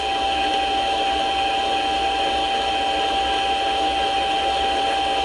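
Mini lathe running steadily, its spring-loaded form tool cutting a radius on the end of a 1018 steel rod, with one steady whine held throughout.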